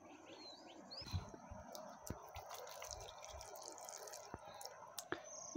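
Water trickling and dripping faintly from a small pot onto the soil of potted plants, with a few soft bird chirps in the first second.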